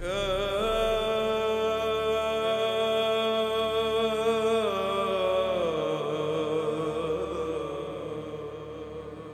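A single voice chants one long held note that slides down to a lower note about five seconds in, then slowly fades out.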